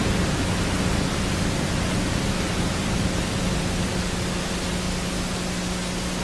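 Steady hiss with a faint low hum: background noise of the soundtrack, with no other sound standing out.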